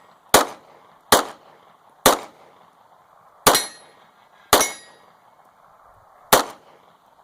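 Six 9mm shots from a CZ 75 pistol fired in fairly quick, uneven succession at steel targets, several followed by the brief ring of a hit steel plate.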